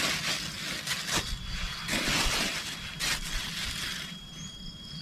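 Rustling, crackling handling noise close to the microphone in uneven surges, over a low wind rumble. A thin, steady high-pitched insect tone sets in about a second in.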